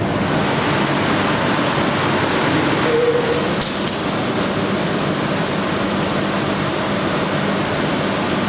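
Steady rushing air noise of ventilation in a concrete underground tunnel, with a faint low hum under it.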